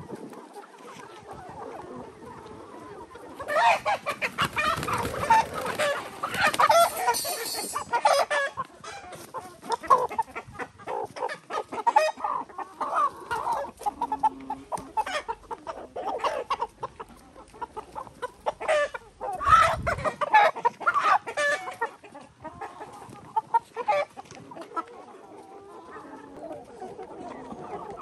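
A large flock of chickens clucking, with roosters crowing now and then. The calling grows louder and busier from about three to eight seconds in, and again around twenty seconds in.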